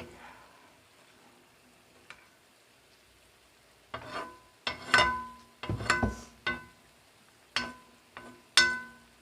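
Metal utensil knocking against a metal cooking pot while cooked vegetables are scooped out of the broth. About four seconds in come a run of about eight sharp clanks, each with a brief metallic ring.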